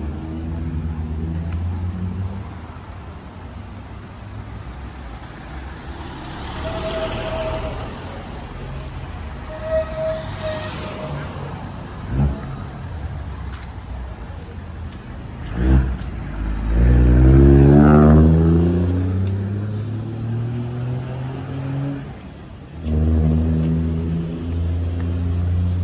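City street traffic with motor engines running. About two-thirds of the way through, a vehicle accelerates close by with a rising engine note, the loudest sound here. A couple of sharp knocks come a few seconds before it.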